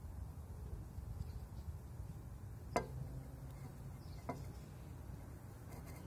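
Two light knocks about a second and a half apart, the first the louder, over a steady low rumble, as a bottle of Engine Restore stands upended in a lawn mower's oil fill neck.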